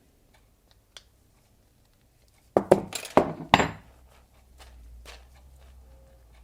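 A quick cluster of sharp metal clinks, about two and a half seconds in, from tools working on a bicycle pedal's axle nuts during bearing adjustment. A faint, steady low hum follows.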